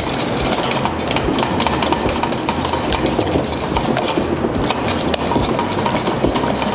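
A utensil beating a thick mashed-potato mixture in a stainless steel saucepan: a fast, steady clatter of scrapes and knocks against the pan.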